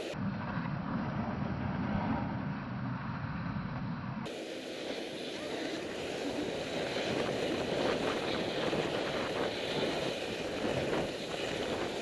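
Wind rushing over a helmet camera's microphone during a downhill ski run, with the steady hiss and scrape of the ride over groomed snow. For about the first four seconds the sound is dull and muffled, then it opens up and turns brighter.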